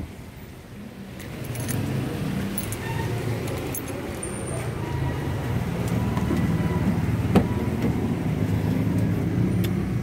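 A motor vehicle engine running steadily, rising over the first couple of seconds and slowly growing louder, with a few light clicks and one sharper click about seven seconds in.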